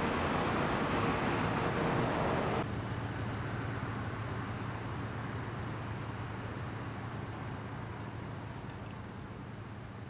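Common kingfishers, a male and female pair, calling to each other: short, high, down-slurred whistled notes repeated about once a second at uneven intervals. Behind them is a steady low background rumble that drops a little about two and a half seconds in.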